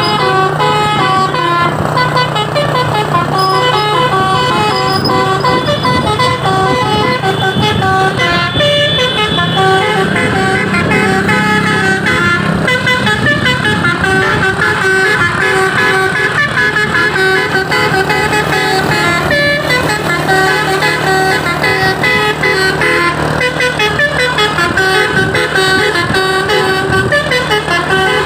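Truck's Basuri telolet musical horn playing a long tune of quick stepped notes without a break, over a steady low hum.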